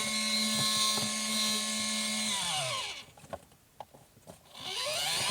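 The small 12 V electric motor of a portable washing machine's spin dryer running with a steady hum, then winding down to a stop about two and a half seconds in, with a few clicks, before spinning back up to speed near the end.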